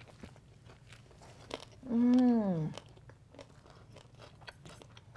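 People chewing fish tacos, with soft crunching and small mouth clicks. About two seconds in comes a long "mmm" of enjoyment that dips in pitch at the end, the loudest sound here.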